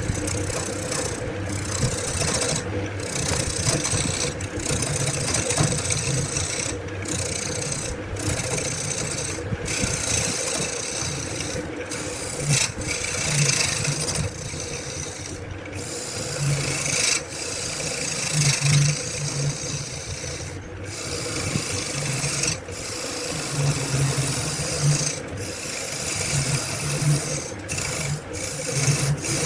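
Wood being rasped or scraped by hand in long, repeated strokes, with a short break every second or two between strokes.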